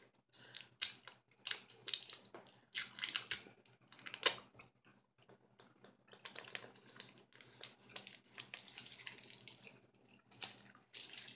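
Crinkling and tearing of a soft-chew candy wrapper being peeled off by hand: a run of irregular crackles and rustles, in bursts with short pauses.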